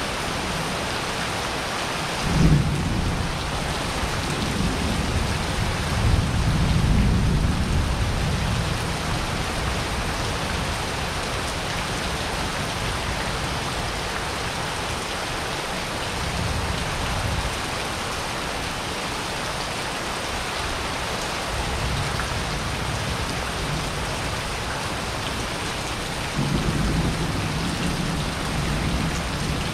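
Steady rain falling on wet paving and roofs during a thunderstorm, with thunder rumbling several times: a sharp clap about two seconds in, a longer roll a few seconds later, fainter rumbles midway, and another roll near the end.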